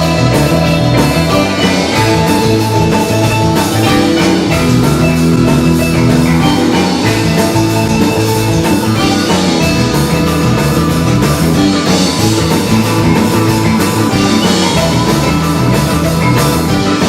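Rock band playing an instrumental break with no singing, over a steady drum beat and bass.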